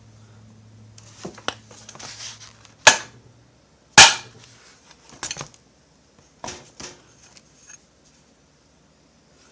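Sharp metal knocks and clatter as a chainsaw crankshaft is seated in a heated crankcase half's main bearing, with two loud hits about three and four seconds in. A low steady hum stops shortly after the second hit.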